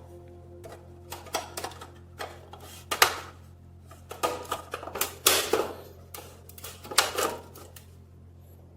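Metal parts clicking and clanking as they are handled, with a dozen or so irregular knocks, the loudest about three, five and seven seconds in, over a steady low hum.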